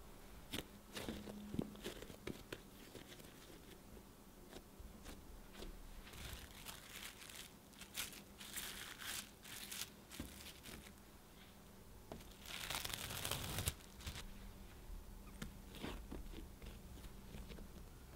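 Hands pressing and handling a ball of risen bread dough on a countertop to knock out the air, with soft pats and taps. Then plastic cling wrap crinkles as it is laid and pressed over the dough, loudest about two-thirds of the way through.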